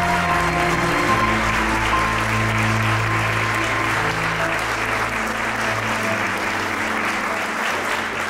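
A crowd applauding steadily over music with held notes and a low bass line.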